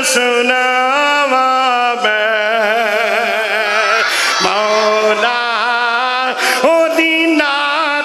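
A male voice reciting a naat in a sung, chant-like style, drawing out long, ornamented notes that waver and slide in pitch, with only brief breaks for breath.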